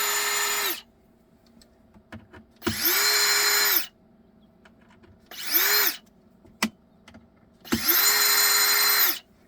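Cordless drill/driver backing out screws: four short runs, each spinning up to a steady whine and then stopping, with a single click between the third and fourth.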